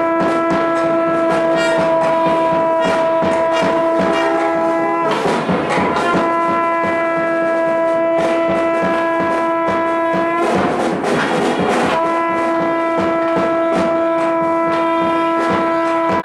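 A horn-like temple wind instrument sounds three long blasts at one unchanging pitch, with short breaks between them, over rapid percussion beats. This is the music that accompanies the camphor-flame aarti.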